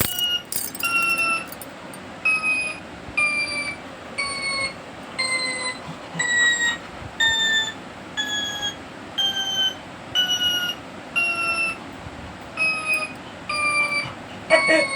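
A high-pitched, piping tone repeated evenly about every three quarters of a second, each short note sliding slightly down, the pitch drifting lower and higher from note to note.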